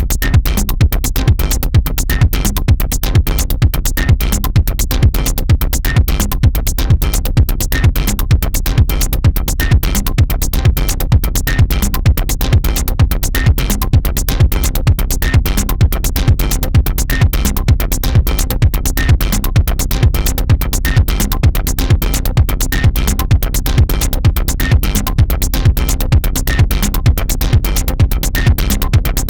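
Electronic dance music with a steady, driving drum-machine beat.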